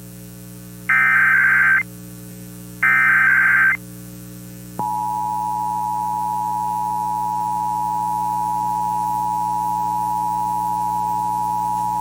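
Emergency Alert System SAME header: two bursts of harsh digital data screech, each about a second long and a second apart, the last two of the header's three repeats. About five seconds in, the EAS two-tone attention signal starts, a steady loud tone. A low steady hum runs underneath.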